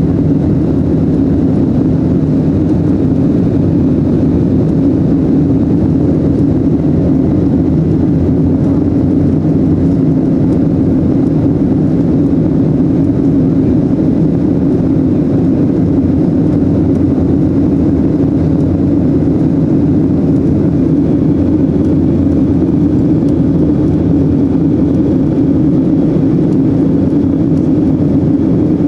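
Steady cabin noise of a Boeing 737-800 in flight: its CFM56 turbofan engines and the rushing air, heard from inside the cabin as an unchanging low hum.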